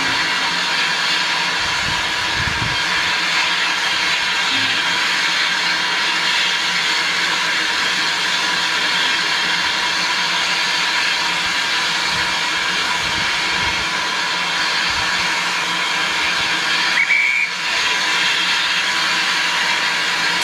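Saddle-tank steam locomotive letting off steam: a loud, steady hiss, broken about three-quarters of the way through by a brief high tone.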